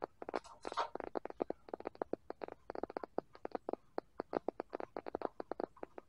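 Ratcheting torque wrench clicking in quick runs of short, sharp clicks as it turns the 15 mm rear axle nut of a fatbike.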